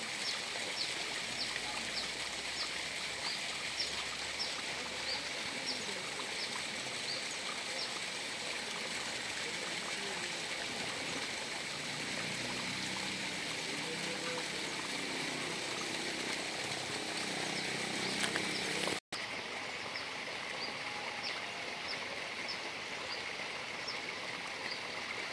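Steady outdoor background hiss with a short, high chirp repeating about twice a second, and faint low voices partway through; the sound cuts out for an instant near the end.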